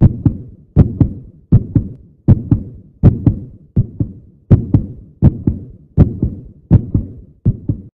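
Heartbeat sound effect: steady double thumps (lub-dub), about eighty beats a minute.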